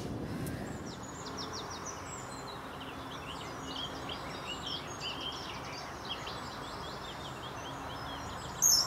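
Small birds chirping and twittering, many short quick notes, over a steady outdoor hiss. A short, loud, high-pitched sound comes near the end.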